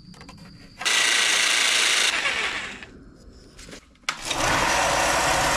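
A power tool runs for about a second and a half and winds down. Then, after a click about four seconds in, a Ryobi benchtop belt and disc sander starts and runs steadily, sanding a round wooden mug base.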